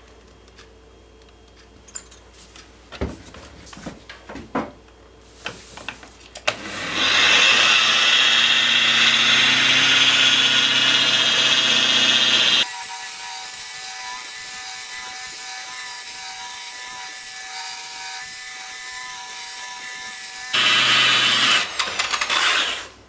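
Slow-spinning rotary car polisher with a foam pad buffing car polish into an acrylic turntable lid. A steady whirr starts about six seconds in, after a few light handling knocks. About halfway through it drops abruptly to a thinner, quieter tone, then the louder whirr returns near the end.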